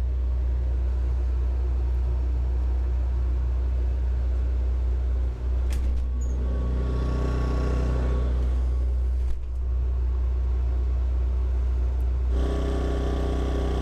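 Steady low hum of a boat cabin's air conditioner running, with a portable inverter generator running faintly outside under a light load (about 25%). A couple of faint knocks come about a third and two thirds of the way through.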